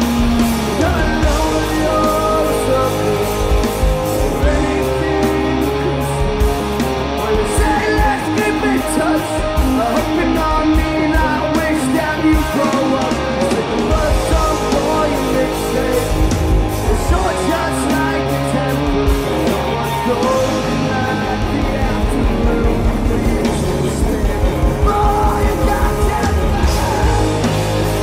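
Live rock band playing electric guitars, bass and drums at a steady loud level.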